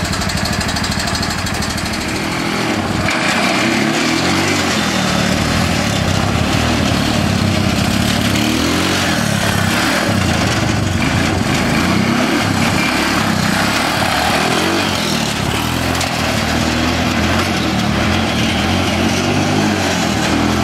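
Small engine of a 1969 Roof Palomino lawn-mower mini jeep running under load as it is driven with the differential locked, its pitch rising and falling again and again as the throttle and speed change.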